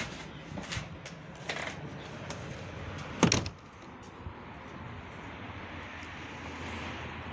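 The lever handle of a uPVC door clicking and the door opening, then the door shutting with a loud thud about three seconds in. After that, a steady outdoor background hiss.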